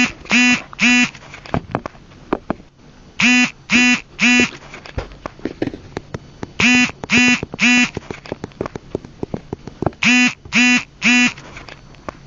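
A loud, buzzy electronic tone beeping in groups of three short beeps, four groups in all, repeating about every three and a half seconds. Faint clicks and knocks come in between.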